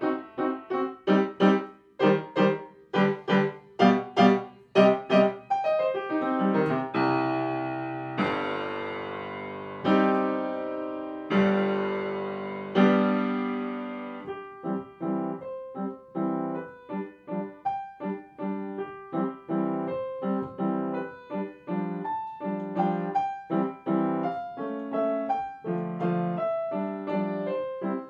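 Solo piano music: a run of quick struck notes, then a few long chords that ring and fade about midway, then a lighter, quicker melody.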